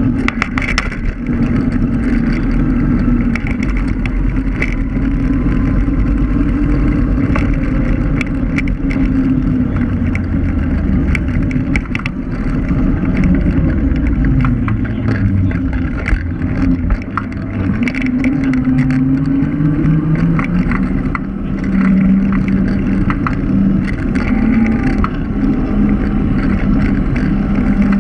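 Electric scooter riding on asphalt: a motor whine that falls and rises again with speed about halfway through, over a steady rumble of tyres and wind, with frequent rattling clicks from the road.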